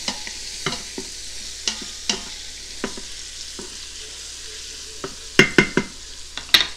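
Chopped onions and bacon sizzling in an Instant Pot's stainless steel inner pot, stirred with a wooden spoon that scrapes and knocks against the pot. There are several louder knocks about five seconds in and one more near the end.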